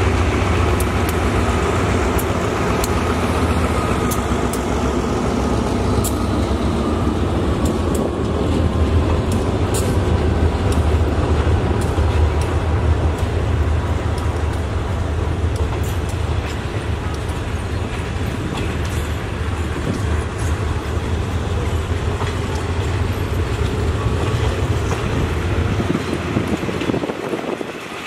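SRT GE diesel-electric locomotive 4538 passing at speed with its engine running, a tone dropping slightly in pitch as it goes by. It is followed by a long rake of passenger carriages rolling past with a steady low rumble and repeated clicks of wheels over the rail joints.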